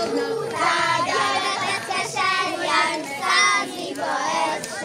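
Children's voices singing together.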